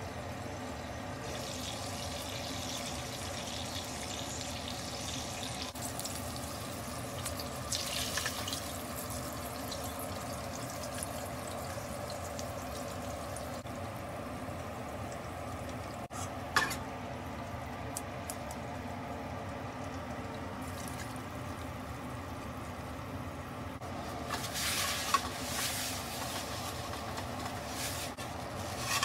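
Meat juices sizzling steadily in a frying pan, with a single sharp knock about midway. Near the end, a paper towel rubbing around the pan.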